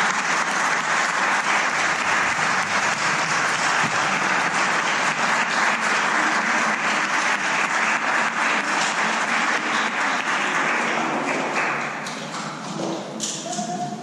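Audience applauding steadily, then thinning out near the end.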